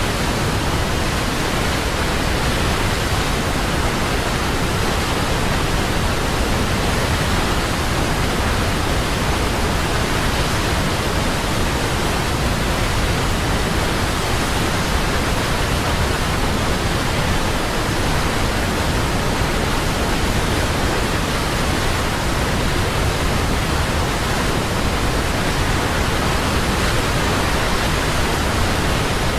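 A large waterfall running: a steady, unbroken rush of falling water.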